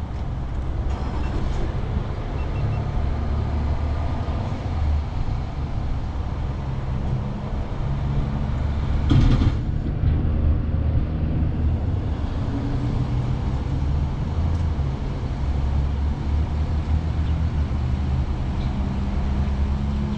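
Dual-sport motorcycle engine idling steadily, heard close from the bike itself, with a brief louder rush of noise about nine seconds in.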